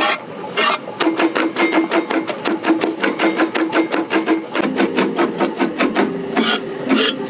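Chinese cleaver chopping garlic on a wooden cutting board: a fast, even run of knocks, about ten a second, mincing the smashed cloves fine.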